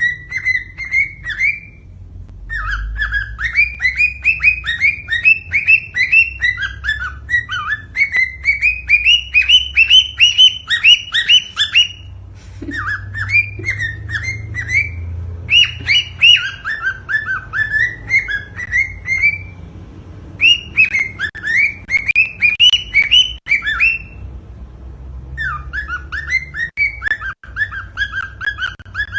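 Cockatiel singing: phrases of rapid, repeated whistled chirps, several a second, broken by short pauses. It is cockatiel song of the kind played to stimulate breeding.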